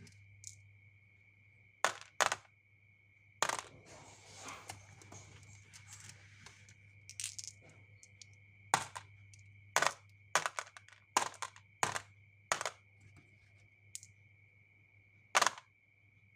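Marbles and small toy cars rolling down a wooden marble-run track, with about a dozen sharp clacks as they hit the track pieces. A stretch of rolling rattle comes about four to seven seconds in.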